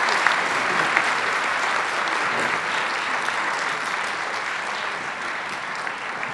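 Audience applauding in an auditorium, a dense steady clapping that slowly dies down.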